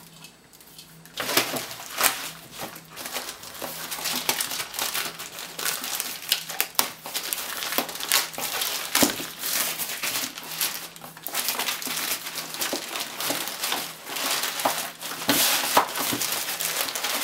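Thin plastic courier mailer bag crinkling and tearing as it is ripped open by hand, starting about a second in, with many sharp crackles.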